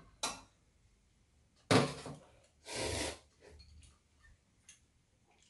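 Ramen noodles slurped from chopsticks: two short, loud, noisy slurps about two and three seconds in, after a brief click near the start.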